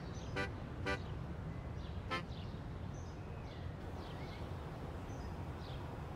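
Outdoor street ambience: a steady low traffic rumble, with a few sharp clicks in the first two seconds and faint high chirps midway.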